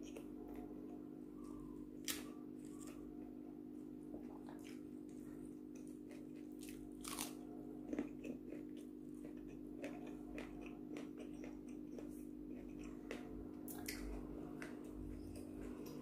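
Close-up chewing of raw round eggplant (terong bulat) with rice, with a few sharp crunches along the way, over a steady low hum. The eggplant is young and tender.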